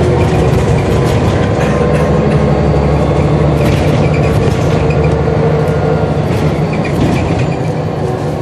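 Diesel engine of a Scania L94UB bus pulling steadily under way, heard from inside the passenger cabin, with road noise and light interior rattles. The engine note eases slightly near the end.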